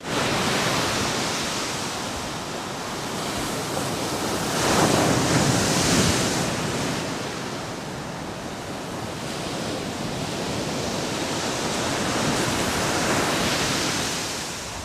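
Ocean waves washing in a steady rush of surf that swells and eases, loudest about five seconds in and swelling again near the end.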